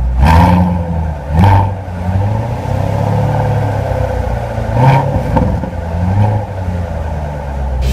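2014 Chevrolet Corvette Stingray's 6.2-litre LT1 V8 idling through its quad exhaust, blipped four times in short revs that rise and fall back.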